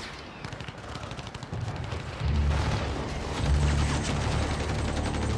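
Rapid gunfire, a dense run of shots. About two seconds in, a loud, deep low rumble takes over.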